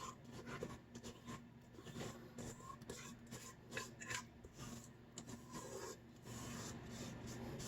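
Faint, irregular scraping of a utensil against a mixing bowl as cornbread batter is scraped into a baking pan, with small clicks.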